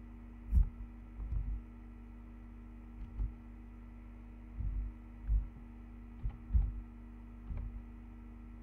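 Steady low electrical hum with several dull computer-keyboard keystrokes at irregular intervals as a word is typed.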